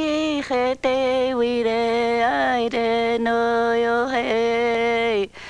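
A single voice singing without accompaniment, in long held notes that slide from one pitch to the next, with brief breaks between phrases.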